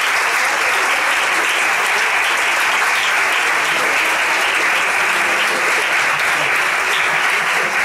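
Audience applauding: many people clapping in a dense, steady stream with no break.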